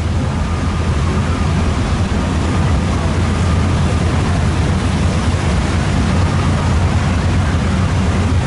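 Boat engine running steadily under way: a constant low drone with a wash of wind and churning water over it.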